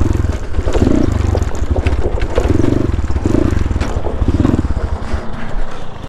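GPX Moto FSE 250 dirt bike's 250cc engine running while being ridden, the throttle opening and closing in several surges.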